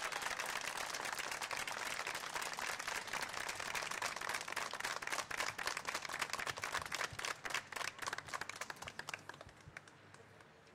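Audience applauding: dense clapping that thins out into separate scattered claps and dies away near the end.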